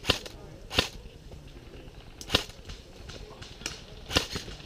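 Airsoft guns firing single shots: four sharp pops spaced irregularly, a second or more apart.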